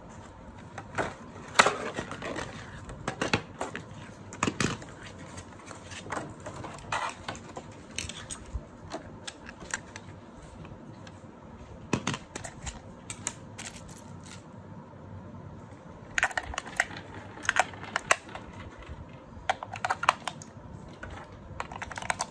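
Plastic blister packaging crinkling and the plastic housings of a wireless motion-sensor door chime clicking and knocking as they are handled. Near the end, AA batteries click into one unit's battery compartment.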